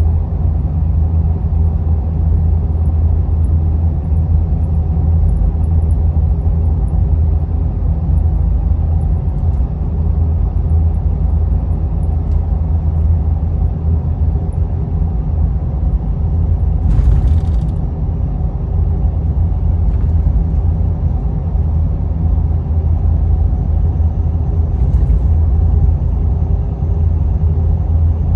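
Cab interior of a 6.7 L Powerstroke V8 turbo-diesel truck with a 5-inch straight exhaust (no muffler) cruising at steady speed: a constant low drone. About seventeen seconds in there is a brief rushing noise.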